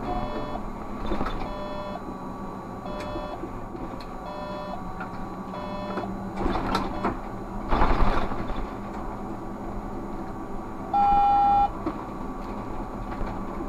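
Inside the cab of a Škoda 30Tr SOR trolleybus under way: short electronic cab beeps repeat about every one and a half seconds for the first six seconds, over the steady low hum of the running vehicle. A rattling burst comes about eight seconds in, and a single loud, steady beep of under a second sounds near the end.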